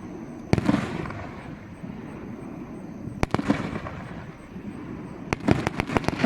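Aerial fireworks display going off: a bang about half a second in, another pair around three seconds in, then a quick run of several sharp cracks near the end.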